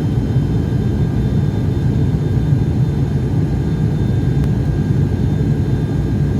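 Small propeller airplane's engine and propeller drone heard inside the cabin: a loud, steady, low hum that does not change.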